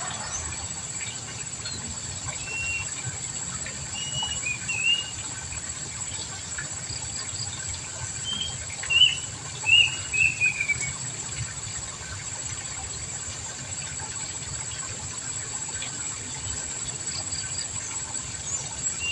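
A small bird chirping in short, arched notes, a few at a time with pauses between groups, over a steady high-pitched hum.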